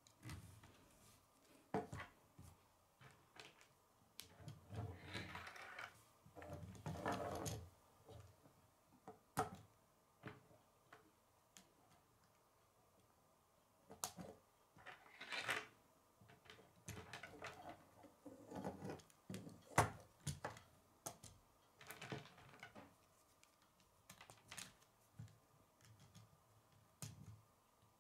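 Plastic K'nex rods and connectors being handled and snapped together: faint, irregular sharp clicks with a few longer stretches of plastic rattling and rubbing.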